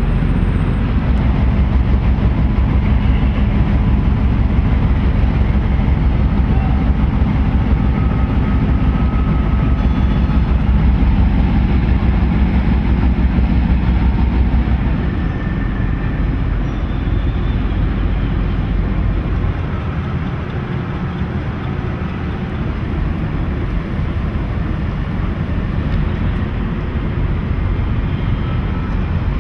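Steady low engine rumble with a fast, even pulse, easing off about halfway through.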